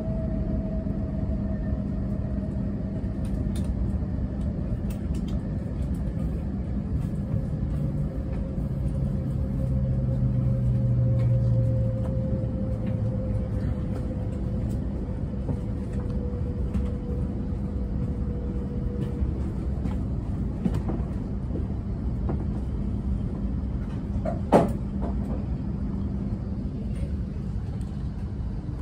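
Shinkansen train slowing into a station: a steady rumble with a thin whine that falls slowly in pitch and fades out about two-thirds of the way through as the train comes to a stop, leaving a steady hum. A single sharp click comes a few seconds before the end.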